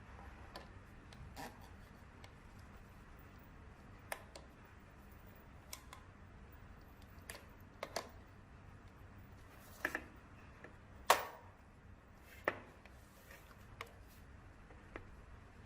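About a dozen light clicks and taps at irregular intervals, the loudest about eleven seconds in.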